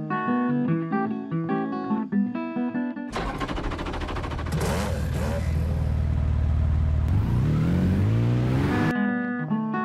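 Recorded drift-car engine sound sample from an RC sound unit's library played on a computer: about three seconds in, the engine runs steadily, revs briefly, then rises in a long rev and cuts off suddenly near the end. Acoustic guitar music plays before and after it.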